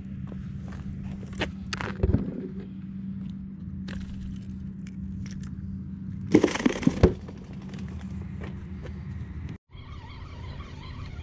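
Handling sounds of landing and unhooking a whiting: scattered clicks and knocks from the rod, line and fish, with a louder rustling scuffle about six seconds in. A steady low hum runs underneath and cuts out briefly near the end.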